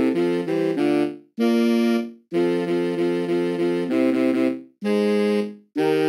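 Finale notation-software playback of a four-part SATB choral arrangement, the sung lines played by steady, reed-like instrument sounds rather than voices, with the bass part brought forward. Phrases of repeated chords are broken by four short rests, the first about a second in and the last near the end.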